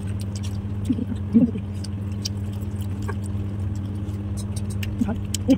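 Small scattered clicks and clinks of eating, a spoon against a ceramic plate and chewing, over a steady low hum. A short voice sound about a second and a half in and again near the end.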